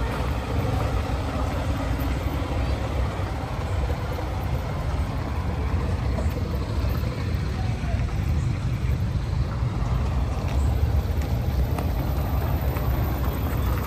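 Steady low rumble of engines running, with faint voices in the background.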